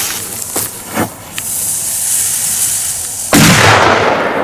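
A lit firecracker's fuse hissing, then a little over three seconds in one loud bang, fading over the following second.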